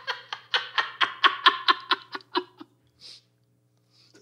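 A man laughing: a run of quick, evenly spaced laughs that fade away after about two and a half seconds.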